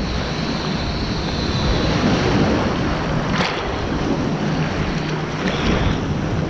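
Rough, churning water of a wave river rushing steadily around the rider, with wind noise on the microphone.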